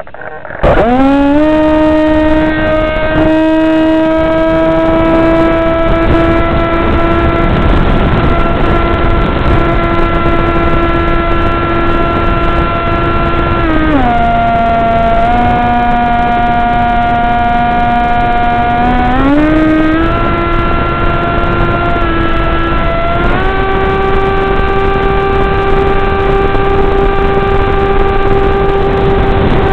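RC airplane's motor and propeller heard from the onboard camera, a loud steady buzzing whine that comes in sharply about half a second in. Its pitch falls for several seconds midway as the throttle is eased, rises again, then steps higher near the end.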